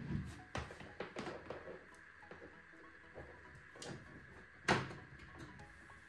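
Light clicks and knocks of a plastic Cosori air fryer being handled and shifted on a wooden countertop, with one sharper knock about two-thirds of the way in.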